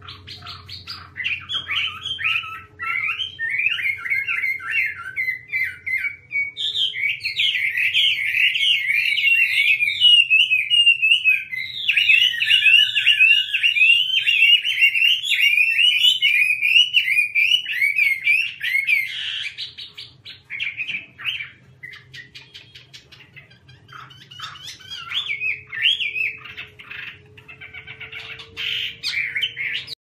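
Caged Chinese hwamei (Garrulax canorus) singing a rapid, varied song of whistled and warbled phrases. The song is continuous and strongest through the first two-thirds, then breaks into shorter phrases with pauses before picking up again near the end.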